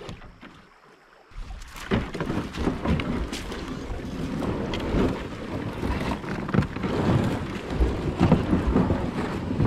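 Loaded kayak being hauled by hand through shallow water onto a gravel bar: the hull scrapes and grinds over river rocks, mixed with water sloshing and splashing steps. The noise is irregular and full of small knocks over a low rumble, and starts about a second in.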